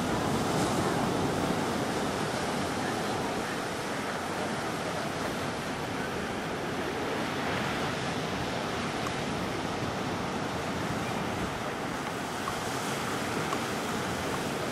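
Ocean surf breaking and washing toward shore, a steady rush of waves.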